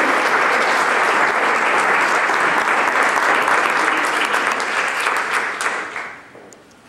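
Audience applauding, a dense steady clatter of many hands that dies away about six seconds in.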